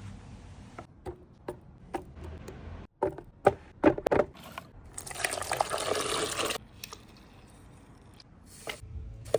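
Kitchen preparation sounds: scattered light clicks and knocks, a few sharper knocks, then liquid being poured for about a second and a half.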